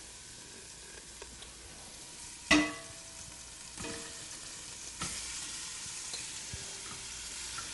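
Chunks of raw meat sizzling as they are tipped into hot ghee in a stainless-steel pot, with a ringing metal clank about two and a half seconds in and a couple of smaller knocks. The sizzle grows louder from about five seconds in as more meat goes in.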